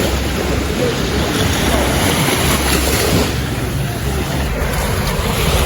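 Surf washing onto a beach, with wind buffeting the microphone in a steady low rumble.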